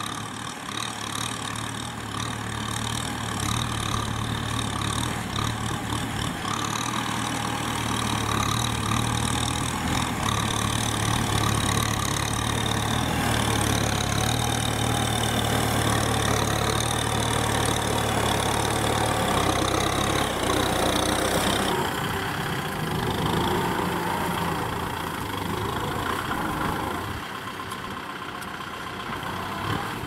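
Kubota M6040SU tractor's diesel engine running steadily under load while pulling a disc plough through the soil. About 22 seconds in the sound drops and becomes quieter.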